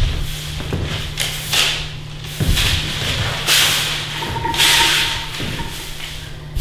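Straw broom sweeping paper slips across a stage floor: a series of swishing strokes, roughly one or two a second.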